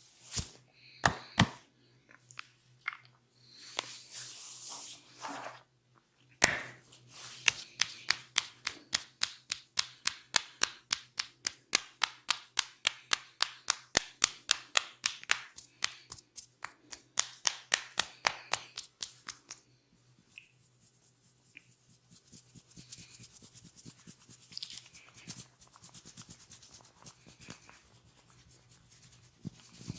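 Massage by hand: a few sharp clicks, a short stretch of rubbing, then a long run of quick, even hand strikes, several a second, lasting about thirteen seconds. Softer rubbing and scratching follows.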